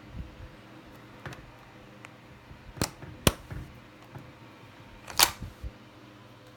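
Sharp metallic clicks from handling a Mauser rifle bolt: two close together, then a louder, slightly longer clack about two seconds later, with fainter ticks between.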